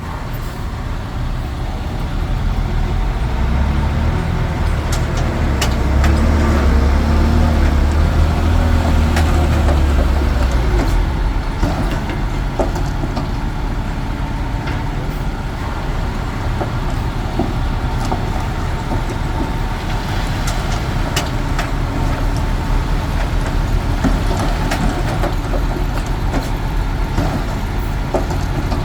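Komatsu D21P bulldozer's diesel engine running steadily, pulling harder with a deeper rumble from a few seconds in until about eleven seconds. Scattered sharp clanks sound throughout.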